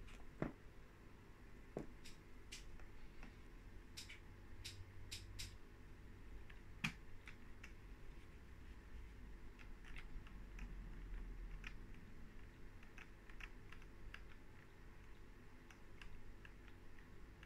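Sparse, irregular clicks from a laptop being operated, a few of them louder, over a faint low hum.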